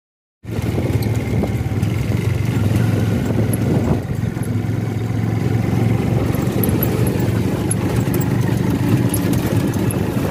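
Engine of a moving vehicle heard from on board, running steadily with a low drone and road noise; it starts abruptly about half a second in.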